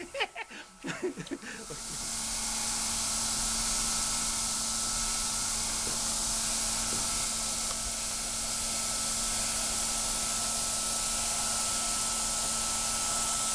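A man laughs briefly at the start. From about two seconds in, a steady hiss with a faint low hum runs on evenly.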